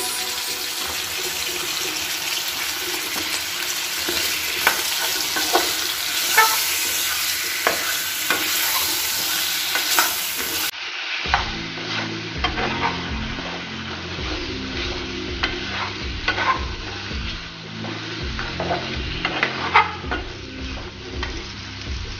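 Chicken and potato pieces sizzling in oil in a metal frying pan, with a metal spoon scraping and clinking against the pan as it is stirred. The sizzle drops a little about eleven seconds in.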